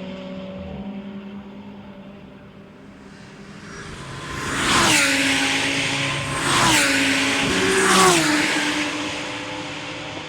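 Endurance race cars passing at speed one after another: a fainter car fades away at the start, then three cars go by about five, just under seven and eight seconds in, each engine note dropping in pitch as it passes.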